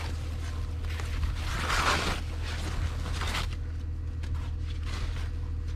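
Foam packing sheets rustling and crinkling as they are pulled off a plastic mount in a cardboard box, loudest about two seconds in, over a steady low hum.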